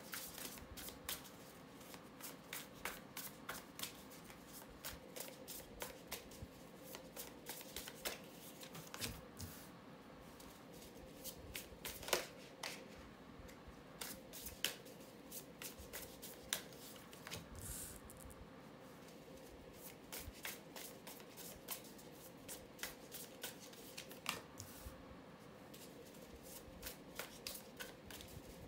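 A deck of tarot cards being shuffled by hand and cards laid down on a tabletop: a long, uneven run of soft card clicks and flicks, the sharpest one about twelve seconds in. A faint steady hum sits underneath.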